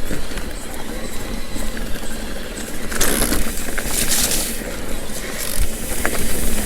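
Mountain bike riding a rough dirt trail, heard through a helmet-mounted camera: steady wind rush on the microphone mixed with tyre noise and bike rattle, surging louder about three and four seconds in.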